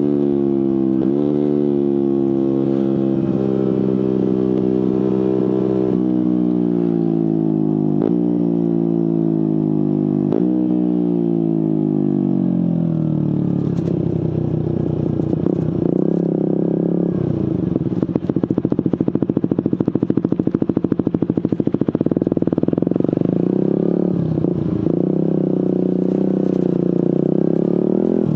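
Suzuki GSX-R150's single-cylinder engine through an aftermarket Prospeed exhaust, slowing on engine braking. Its pitch falls steadily, jumping up sharply four times as the autoblipper blips each downshift. It then runs low and steady, with a rapid pulsing in the exhaust for a few seconds past the middle.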